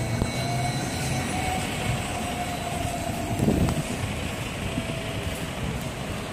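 City bus engine running as the bus pulls away and drives off, a steady low rumble with a faint steady whine. The sound swells briefly about three and a half seconds in.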